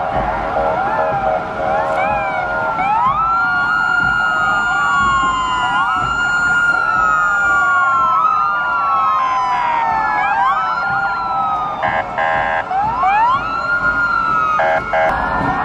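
Sirens of several fire engines wailing together, their rising and falling tones overlapping out of step as the convoy passes.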